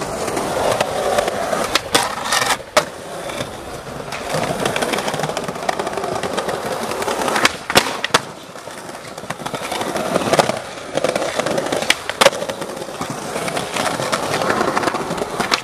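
Skateboard wheels rolling over stone paving, with several sharp cracks of tail pops and landings and a grind of the trucks along a stone ledge.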